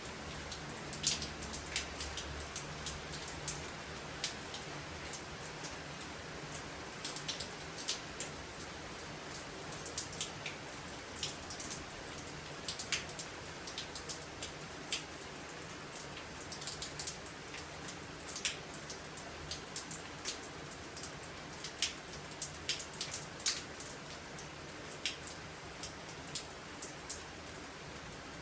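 Storm rain falling steadily, with many sharp, irregular drops ticking on a nearby surface over the steady hiss.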